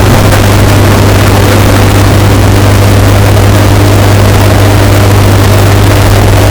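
Washing machine running, its steady hum bass-boosted until it distorts: a loud, unbroken low drone under a harsh hiss.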